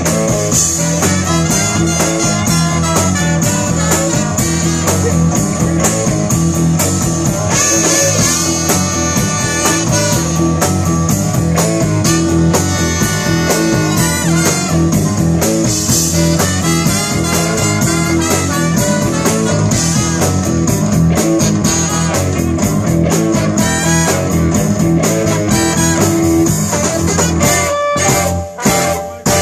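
Live blues band playing an up-tempo number, with a horn section of trombone, trumpet and saxophone over electric guitar, keyboard and drums. Near the end the music breaks into short separate hits with gaps between them.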